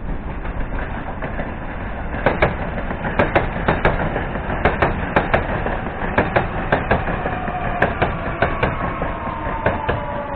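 Ivolga EG2Tv electric train running past on the far track: a steady rumble of wheels on rail, with sharp wheel clacks over the rail joints, a few a second, from about two seconds in. Near the end a whine from the train slides down in pitch.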